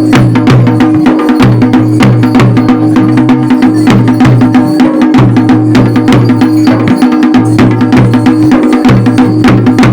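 Music with fast, dense percussion strokes over steady held low notes.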